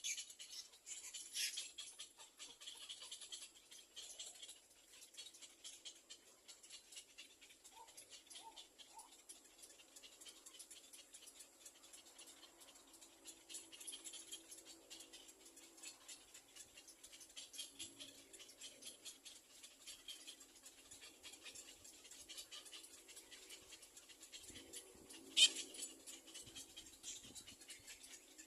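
Nestling birds in a nest giving faint, rapid high-pitched chattering and stirring, with one sharp click about 25 seconds in.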